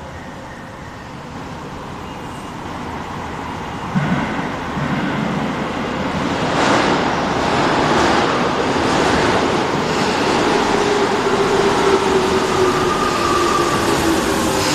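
Tobu 20050 series electric train approaching through the subway tunnel and running into the platform. Its rumble grows steadily louder, with a sudden rise about four seconds in. A whine falls in pitch over the last few seconds as the train slows to stop.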